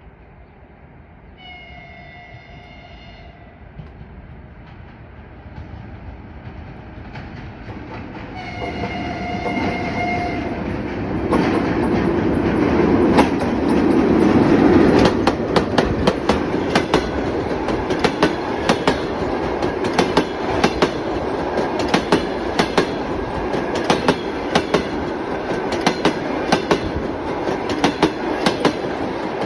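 EP1 electric locomotive with a passenger train sounding its horn twice, two held chords, as it approaches. It then passes close by, with a steady rhythmic clickety-clack of wheels over the rail joints.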